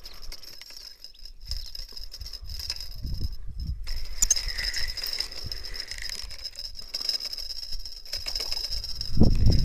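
Spinning reel being cranked to reel in a hooked fish, its handle and gears rattling. Low buffeting bumps on the microphone run throughout and get louder near the end.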